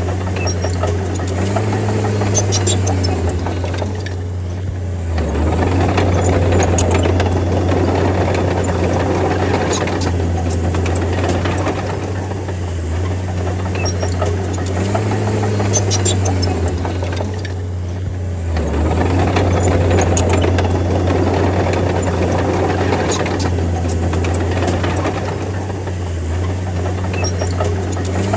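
D30 bulldozer's diesel engine running under load, its note rising and falling in a repeating cycle of about 13 seconds as the machine works, with scattered metallic clicks and clanks.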